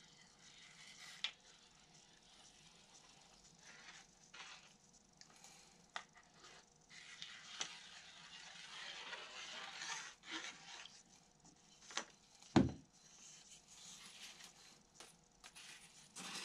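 Faint handling sounds of gluing a wooden spar: light scattered clicks and taps, a soft hissing stretch in the middle, and one louder thump a little past halfway.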